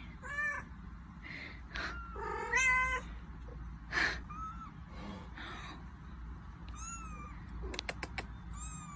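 A mother cat and her kitten meowing: a string of short meows, the loudest about two and a half seconds in, with thinner, higher mews that arch down near the end. A few sharp clicks sound just before the last mews.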